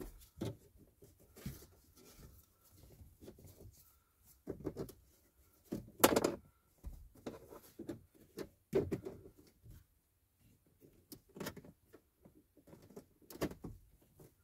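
Plastic trim wedges prying at the Mercedes W213's dashboard speaker grille, working its clips loose: scattered plastic clicks and knocks at irregular intervals, the loudest about six seconds in.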